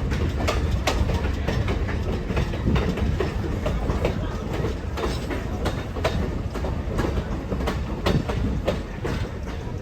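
A moving passenger train's wheels clacking over the rails under a steady low rumble, heard from aboard the train, with frequent irregular sharp clicks and knocks.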